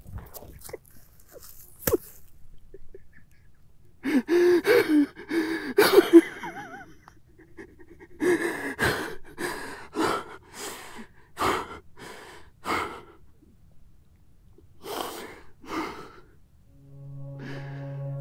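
A man sobbing hard: a few seconds of sniffs and catches of breath, then loud wailing cries, then a run of short gasping sobs. Music with steady held notes comes in near the end.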